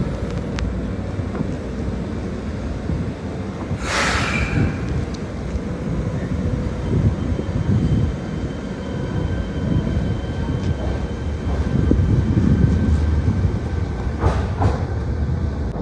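Electric commuter train pulling out of the platform and running past: a steady rumble of wheels and motors, with a short sharp hiss about four seconds in.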